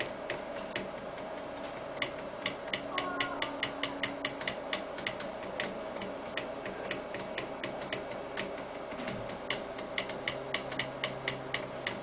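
Floppy-drive stepper motors of a homemade CNC pen plotter ticking in quick, uneven runs of clicks as they step the pen through its lettering, over a faint steady hum.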